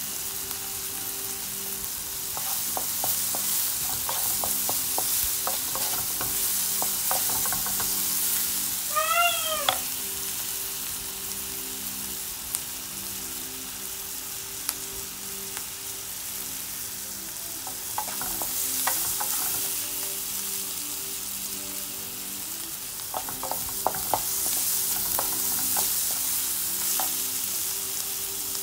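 Sliced onions sizzling in oil in a nonstick frying pan, stirred with a wooden spatula that gives scattered scraping clicks against the pan. A short squeal that rises and falls in pitch sounds about nine seconds in.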